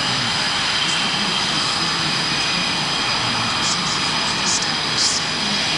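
Blue Angels F/A-18 Super Hornet jet engines running steadily on the ground before takeoff: a constant roar with a high steady turbine whine. A few brief hisses sound in the second half.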